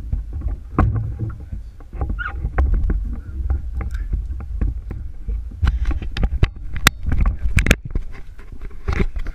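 Water slapping and lapping against the side of a small fishing skiff, over a low rumble of wind on the microphone, with many sharp knocks and splashes, thickest in the second half.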